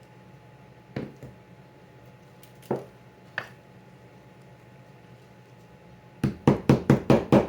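A few scattered light knocks, then about a second from the end a quick run of sharp taps, roughly six or seven a second, from hand work on wooden guitar parts at the bench.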